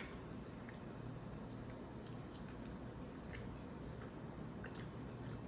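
Faint, scattered mouth sounds of someone chewing spaghetti, over a steady low hum.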